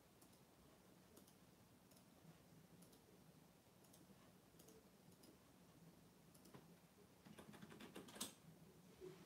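Near silence: quiet room tone with faint scattered clicks, and a quick run of clicks about seven to eight seconds in.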